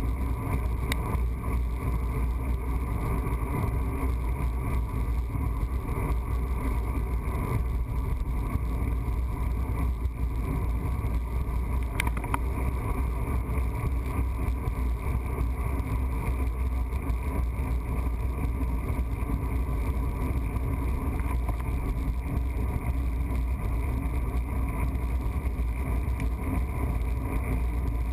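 Steady wind rush on the microphone with tyre noise from a bicycle rolling along a paved road, and a light click about twelve seconds in.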